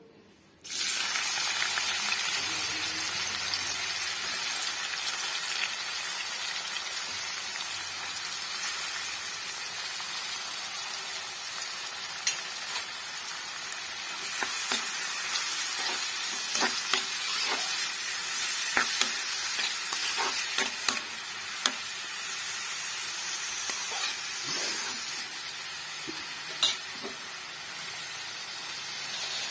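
Chopped onions sizzling in hot oil in a metal kadai, the hiss starting suddenly about half a second in as they go into the pan. A spoon stirs them, clicking and scraping against the pan now and then.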